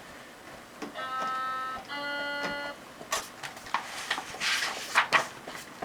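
A two-note cuckoo-clock chime, the read-along recording's page-turn signal: two short steady tones, the second lower. It is followed by the crackly rustle of a paper book page being turned and handled.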